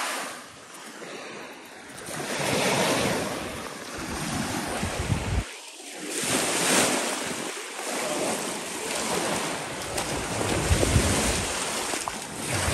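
Lake waves washing onto a sandy shore, with wind gusting on the microphone.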